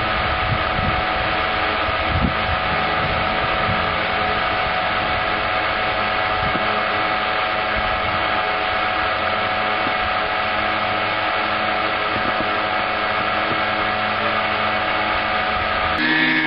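Three brushless electric motors with propellers on a Junkers Ju 52 RC model running on the ground at a steady speed, giving a steady whine of several tones over a whirring rush. Near the end the tone changes abruptly to a different set of pitches.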